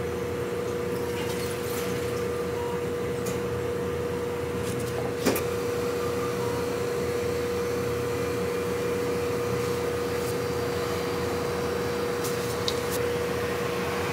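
Steady machine hum with one steady tone running through it, typical of kitchen appliances running. A sharp click comes about five seconds in and a smaller one near the end.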